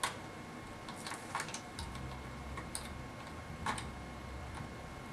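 Scattered small clicks and taps as fingers handle the plastic trim and connectors of an opened HP Pavilion dv2000-series laptop, the sharpest click right at the start.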